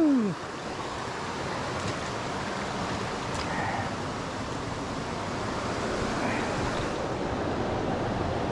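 Shallow mountain stream rushing over rocks and through riffles: a steady rush of water that grows slightly louder toward the end.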